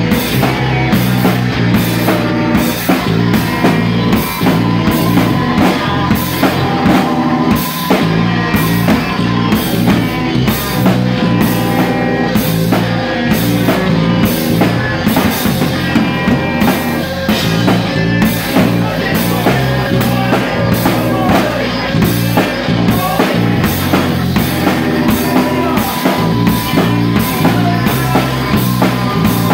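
Live rock band playing loud, with a drum kit keeping a steady beat, about two cymbal strikes a second, under full band instruments.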